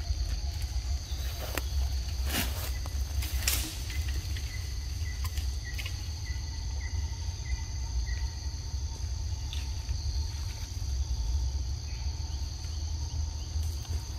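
A steady, high-pitched chorus of forest insects buzzing over a low rumble, with a few short clicks a couple of seconds in.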